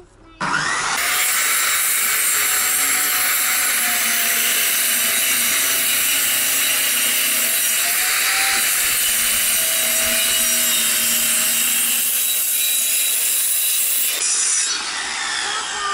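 Handheld electric circular saw cutting through a plywood sheet. It starts abruptly about half a second in, runs steadily under load with a faint whine, and cuts off near the end.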